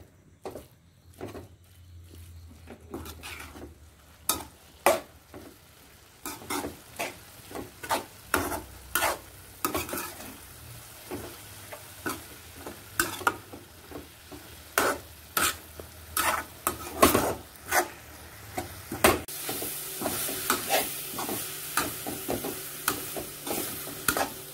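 Metal spatula scraping and clinking against a steel pan as chopped fenugreek greens are stirred and fried, in irregular strokes that come sparsely at first and then about one or two a second. A steady sizzle from the frying greens grows louder near the end.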